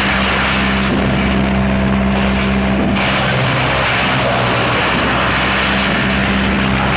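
Drum wood chipper running: a loud, steady machine hum with a dense rushing noise over it.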